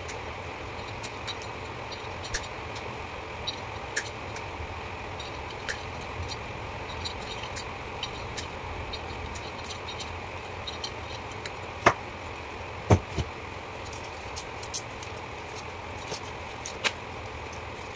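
Old winding wires being pulled out of a pump motor's stator by hand: scattered light clicks and rattles of wire against the metal casing, with a few sharper knocks about two thirds of the way through, over a steady background hum.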